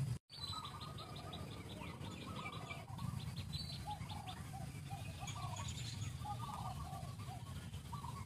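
Birds chirping and trilling: after a brief dropout at the very start, a fast run of high ticking notes for about two seconds, then short chirps repeated over and over, above a steady low rumble.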